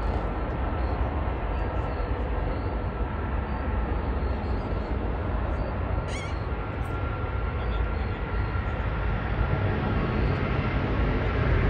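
Rolls-Royce Trent 800 engines of a Boeing 777-200ER at takeoff power as the jet starts its takeoff roll: a steady deep rumble with a faint thin whine, growing louder near the end.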